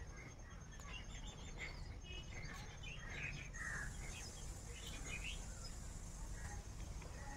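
Birds chirping here and there, short scattered calls over a low steady background hum.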